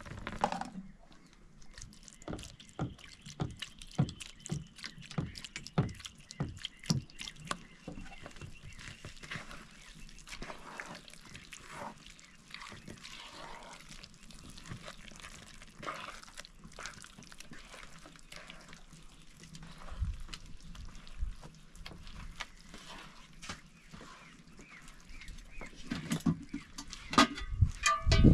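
Hands squelching and slapping through wet bread dough in a metal bowl as flour and water are mixed and kneaded, with soft irregular wet clicks about once or twice a second at first, then quieter. Near the end, a louder clatter of metal pots.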